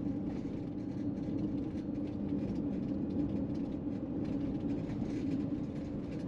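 Steady low rumble and hum of a vehicle driving along a road, even throughout with no changes in pitch.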